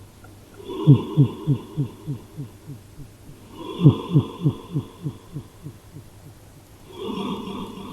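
Cat snoring with an added echo effect. Three snores come about three seconds apart, and the first two each trail off into a run of fast, fading repeats, about three a second, that sounds like laughing.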